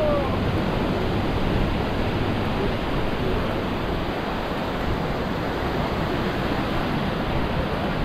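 Steady rush of small surf breaking along a sandy beach, blended with wind.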